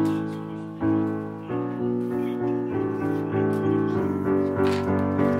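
Background piano music: a slow melody of single struck notes and chords, each ringing out and fading before the next.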